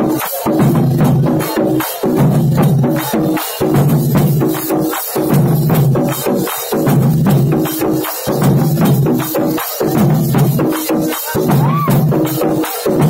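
Ensemble of dollu, the large barrel drums of Karnataka's Dollu Kunitha folk drum dance, beaten hard with sticks in a dense, driving rhythm. The pattern repeats with a brief break about every one and a half seconds.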